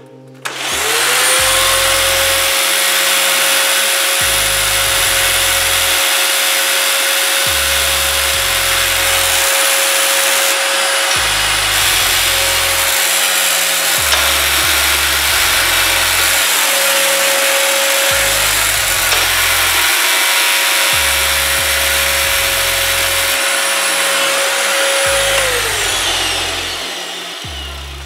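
Hoover Sprint QuickVac upright vacuum cleaner switched on, spinning up with a rising whine to a loud running noise, and switched off near the end, its whine falling as it winds down. It is making a terrible noise that the owner suspects comes from a fault in the roller system.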